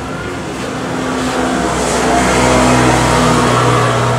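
A motor vehicle's engine running close by in road traffic, growing louder over the first couple of seconds and then holding steady.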